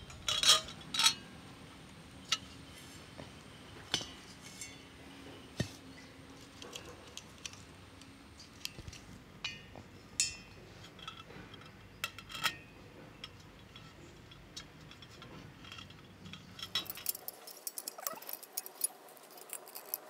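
Metal clicks and clinks of a small portable LPG gas cylinder's screw-on burner head being taken off and fitted onto a replacement cylinder, the old one having run empty. There are two louder clanks right at the start, scattered single clicks after that, and a quick run of small clicks near the end.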